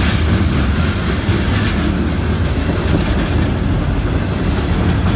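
Covered hopper cars of a CSX freight train rolling past, a loud steady rumble of steel wheels on rail with faint clicks as the wheels cross the rail joints.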